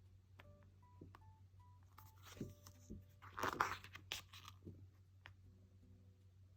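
A photobook page being turned: a short rustle of paper about two to four seconds in.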